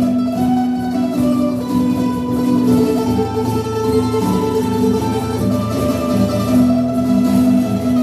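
Live acoustic guitar strumming with a mandolin picking the melody in an instrumental passage.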